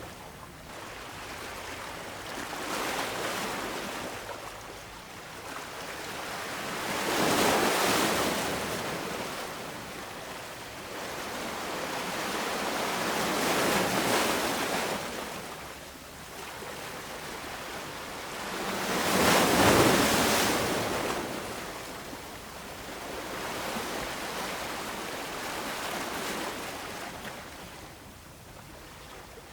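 Ocean waves breaking and washing in, in slow swells every five or six seconds, the biggest about eight and twenty seconds in.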